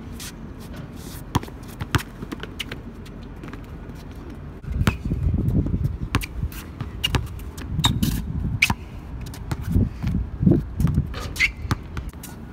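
Basketball bouncing on a hard outdoor court as players dribble, with sneaker scuffs and squeaks. A low rumbling noise comes and goes from about five seconds in.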